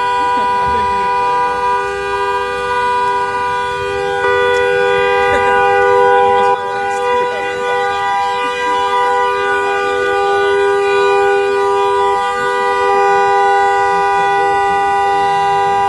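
A vehicle horn sounding continuously in one unbroken two-note tone, almost certainly the burning pickup truck's own horn held on by the fire in its cab.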